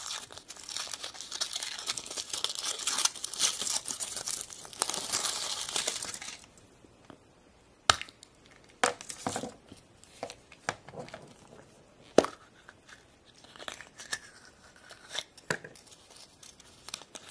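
Foil wrapper crinkling as it is peeled off a chocolate surprise egg for about six seconds. Then come a few sharp clicks and cracks as the chocolate shell is broken open, and faint rustling as the toy's paper wrapping is handled.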